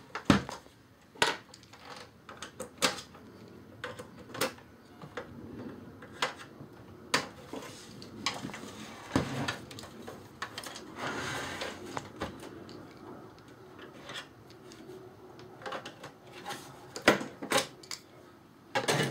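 Irregular plastic clicks, taps and knocks from an Xbox 360's case being turned over and worked apart by hand, with a short stretch of scraping about halfway through.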